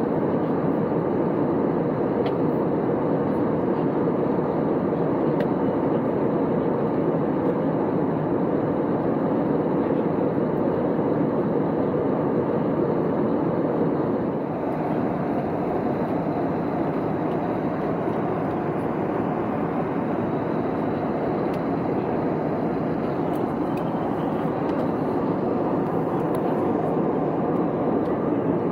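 Steady cabin noise of an Airbus A320neo at cruise: an even rush of engine and airflow noise heard from inside the cabin. The level steps down slightly about halfway through.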